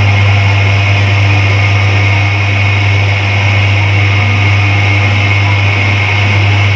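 Fabric roll cutting machine running: its electric motor hums steadily while the spunbond fabric roll spins against a blade pressed into it, with an even hiss from the cutting.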